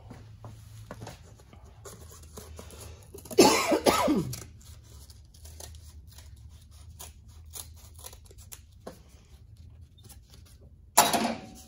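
Scissors snipping through a template sheet, with many small, sharp cuts and clicks. About three and a half seconds in there is one louder, brief noise with a falling pitch.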